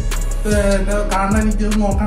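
Background music: a song with a sung vocal line over a steady bass and drum beat.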